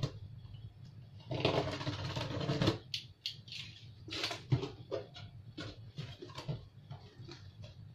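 Cardboard box being opened: packing tape slit with a box cutter and the flaps pulled open and folded back. A noisy stretch of about a second, then scattered rustles and light taps of cardboard.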